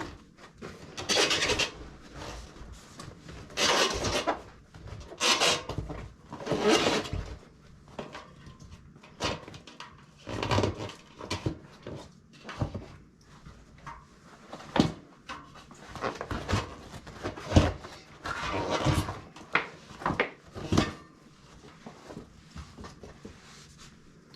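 Fat bike inner tube being worked out from under the tire bead: several long bouts of rubber rubbing and scraping, then a run of short knocks and clicks from handling the tire and wheel.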